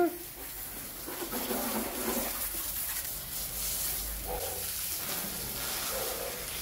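Water from a hose spraying onto a wet garage floor and the car's bodywork: a steady hiss and splatter.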